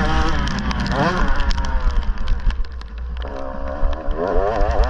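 Dirt bike engine revving while riding: the pitch climbs sharply about a second in, falls away, then rises and dips unevenly near the end as the throttle is worked. A steady low rumble and frequent short clicks run underneath.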